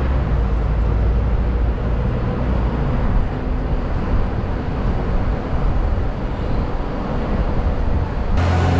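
Steady rumble and road noise of a moving double-decker tour bus and the city traffic around it, heard from the open upper deck. The sound changes abruptly near the end.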